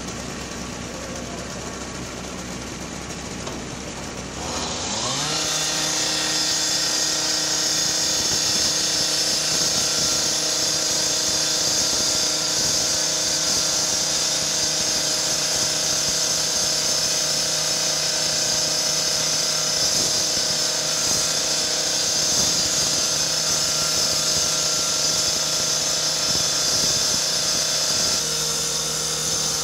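Firefighters' rotary power saw cutting through the steel body of a garbage truck: after a low engine idle it revs up about four seconds in, then runs at a steady high speed with a loud grinding hiss as the blade bites into the metal.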